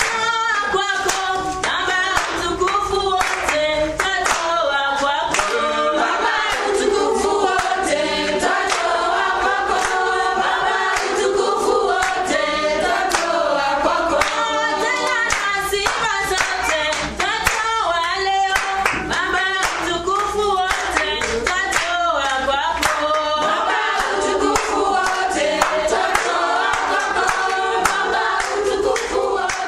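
A group of voices singing together, with rhythmic hand clapping.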